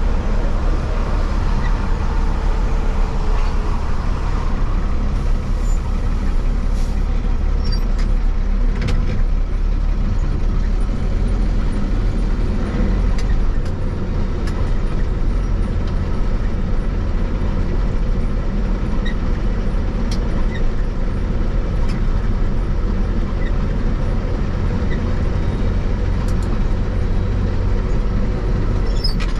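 Truck driving at highway speed, heard from inside the cab: a steady low drone of engine and road noise.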